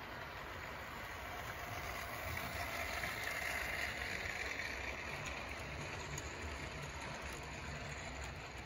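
OO gauge model train running on the track: the locomotive's motor and the wheels on the rails make a steady whirring rattle that grows louder as the train nears and passes about three to four seconds in, then eases off.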